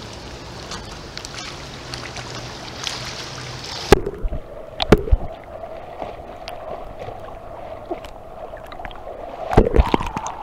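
Swimming-pool water lapping and sloshing against a phone held at the water's surface, with sharp knocks and splashes about four and five seconds in and again near the end as the phone is washed over.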